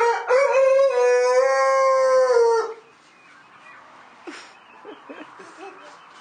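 A long, loud animal call held at one pitch for about two and a half seconds, dropping off at the end.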